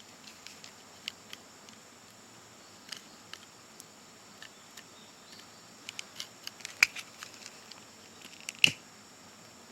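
Small fatwood fire crackling, with scattered sharp pops and snaps that come thicker about six seconds in; two loud pops stand out near the end.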